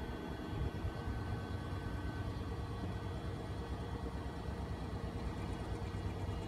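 Steady low mechanical rumble, like an engine idling, with a faint high steady whine above it.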